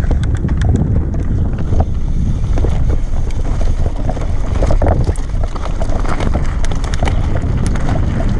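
Wind buffeting the microphone: a steady low rumble, with many small clicks and rattles scattered through it.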